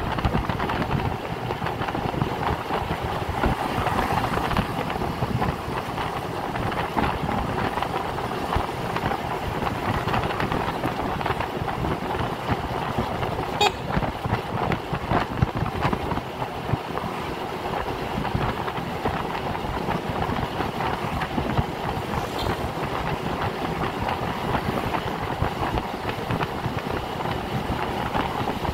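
Wind buffeting the microphone over the engine and road noise of a moving Honda motor scooter in town traffic, a steady rushing sound. There is a short high-pitched sound about halfway through.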